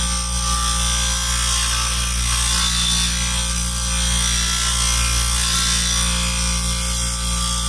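Delta 5-inch disc sander running steadily, with a stainless steel shim strip held against the spinning sanding disc to grind down its high spots.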